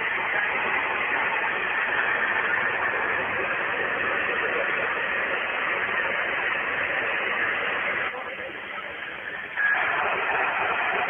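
11-metre CB radio receiver hissing with steady band static. About eight seconds in, the hiss drops quieter for a second and a half, then comes back abruptly with a brief short tone.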